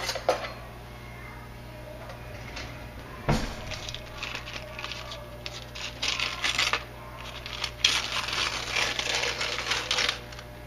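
Oven-baked parchment paper crackling and tearing as it is pulled open by hand, in irregular bursts, with a single knock about three seconds in.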